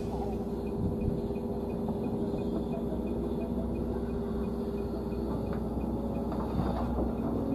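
Crawler excavator's diesel engine running steadily with a low hum while the machine works a mound of loose soil.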